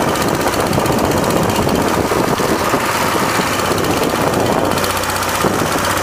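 Small boat engine running steadily with a fast knocking beat while the boat is under way on the water.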